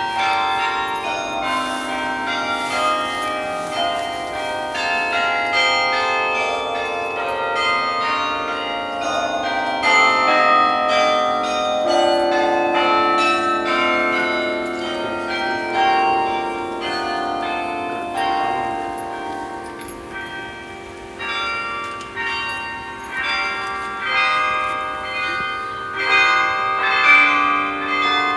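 Bok Tower's carillon playing a melody: many bells struck one after another, their notes overlapping as they ring on.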